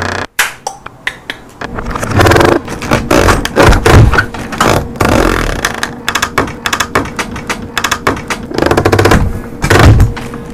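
Dense, irregular run of knocks, clicks and scrapes, with heavier low thumps about two seconds in, around four seconds, and again near the end.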